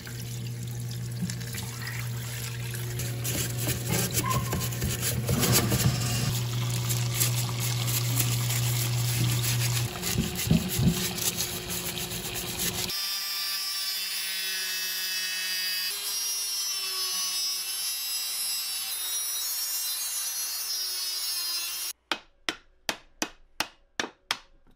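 Parts-washer pump humming and solvent splashing over a gloved hand working inside a cast worm gearbox housing; the hum stops about ten seconds in. Near the end comes an even series of hammer blows on a punch, about three a second, driving the stuck tapered-hub belt pulley off the gearbox shaft.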